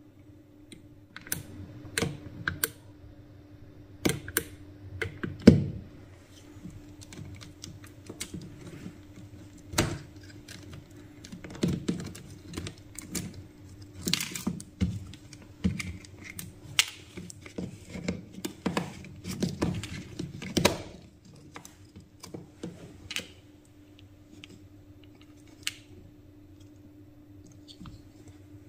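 Irregular clicks, taps and knocks of plastic parts being handled: the opened Parkside PSSA 4 B2 cordless screwdriver's housing, trigger switch, battery and motor-gearbox assembly being moved and lifted out. The clicks are busiest in the middle and thin out near the end, over a faint steady hum.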